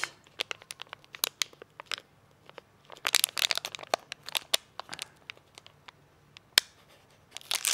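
Clear plastic jewellery bag crinkling and crackling as it is handled, in irregular bursts with scattered single clicks, busiest about three seconds in and again near the end.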